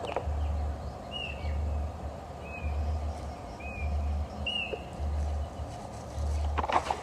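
A bird chirping four times, short curved notes spaced about a second apart, over a low hum that swells and fades roughly once a second.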